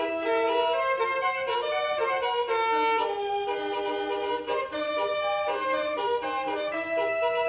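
Basuri telolet bus horn playing a melody: a run of held, reedy notes that change pitch every fraction of a second.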